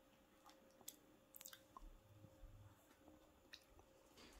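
Near silence, with a few faint mouth clicks and smacks from someone tasting a thick frozen smoothie.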